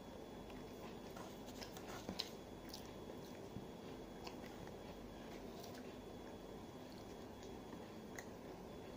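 Children chewing and biting fried chicken, with scattered small crunches and clicks over a faint steady background hum.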